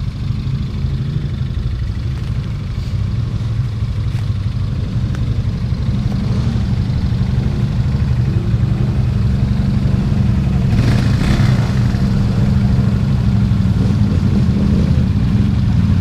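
ATV engine running steadily and slowly getting louder as the stuck quad is being pulled free. A short rush of noise is heard about eleven seconds in.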